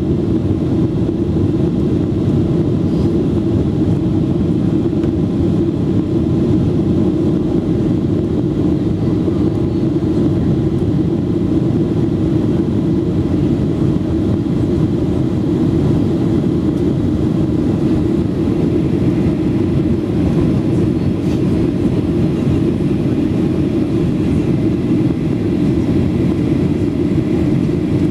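Steady cabin drone of a Ryanair Boeing 737 in flight shortly after takeoff: jet engine and airflow noise heard from inside the cabin. It is loud and deep, and it holds unchanged throughout.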